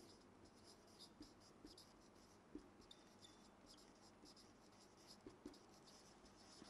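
Faint scratching of a marker pen on a whiteboard as a word is written: a quick run of short strokes with a couple of light taps.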